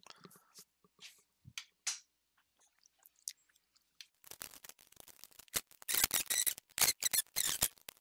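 Clicks, knocks and rattles of a power supply unit being handled and slid back into an HP Compaq Pro 6005 small-form-factor PC case among its cables: a few faint clicks at first, then a dense clatter from about halfway, loudest near the end.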